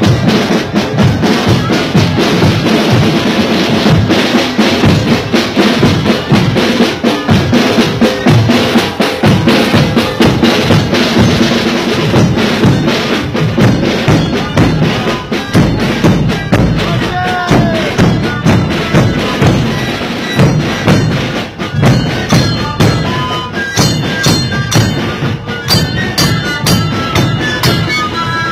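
A sikuri band's bombo bass drums beating a dense, steady rhythm. Near the end, siku panpipes come in over the drums.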